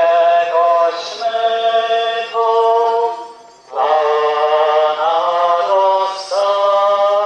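Slow church hymn sung in long held notes, in two phrases with a short breath about three and a half seconds in.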